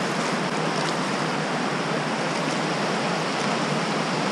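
Creek water running, a steady rush of moving water.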